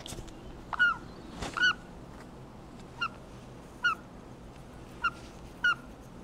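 Baby yellow-sided green-cheeked conure giving six short chirping calls, each rising and falling in pitch, spaced about a second apart.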